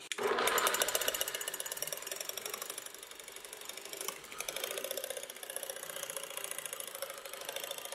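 Electric stand mixer with twin beaters running, beating a block of cream cheese in a stainless steel bowl: a steady motor whir with a fast, even rattle. It switches on at the start and is a little louder for the first second or so as the block breaks up.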